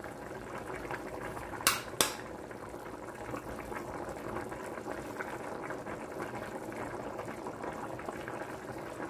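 Pot of chicken tinola soup boiling with a steady bubbling while a stainless ladle skims fat off the surface. Two sharp clicks of the ladle against the pot come close together about two seconds in.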